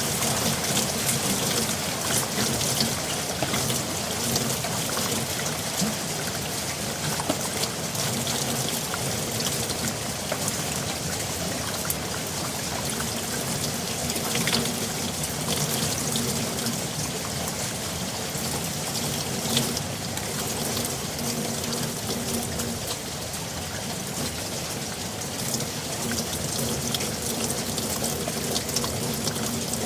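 Steady rain falling, a dense even hiss with many fine drop ticks, and water trickling or pouring among it.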